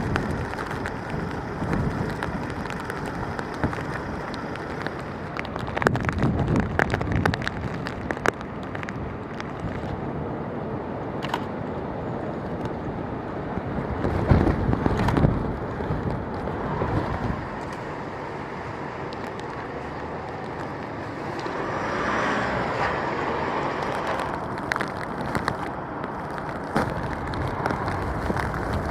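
Outdoor roadside noise: a steady rush of vehicles and wind, swelling louder a few times as something passes, with scattered sharp knocks.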